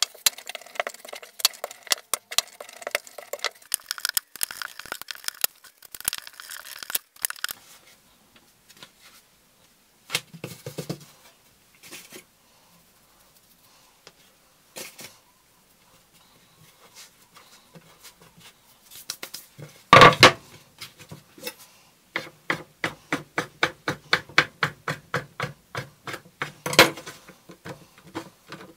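Kitchen knife slicing button mushrooms on a wooden chopping board, a quick series of taps as the blade meets the board. Later a loud metallic clatter about twenty seconds in, then a fast regular run of clicks and knocks of kitchenware near the end.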